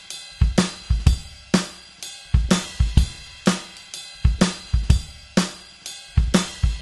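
Music: a drum kit playing a steady beat, with kick drum, snare and ringing cymbals.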